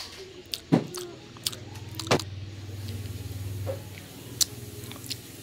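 Close-miked eating of a soft puto (steamed rice cake): sharp mouth clicks and smacks as it is bitten and chewed, over a low hum that swells through the middle few seconds and eases off.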